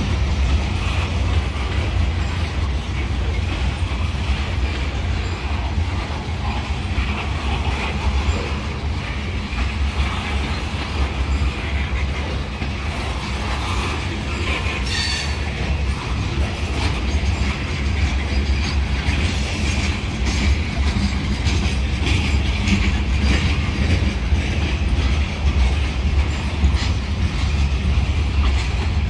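Freight cars of a mixed freight train rolling past close by: a steady rumble of wheels on rail with light clicking over the rail joints, and a brief high wheel squeal about halfway through.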